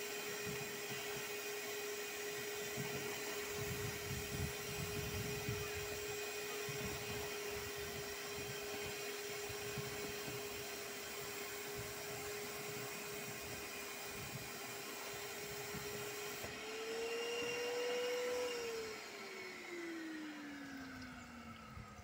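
Eureka Forbes WDX2 wet and dry vacuum cleaner running steadily as it sucks water out of a plastic water tank through its hose. About three quarters of the way in its motor note rises and grows louder, then the motor is switched off and winds down in a long falling whine.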